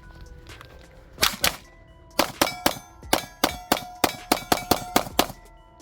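Gunshots fired at steel targets, each hit answered by a metallic clang and ringing of the plates. Two shots come about a second in, then a fast run of about a dozen over the next three seconds as the rest of the magazine is emptied into the steel.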